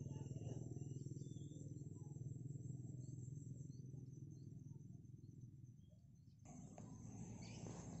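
Insects trilling steadily in a rice field over a faint low hum, with a few faint chirps. About six and a half seconds in, the sound changes abruptly to a broad rustling noise.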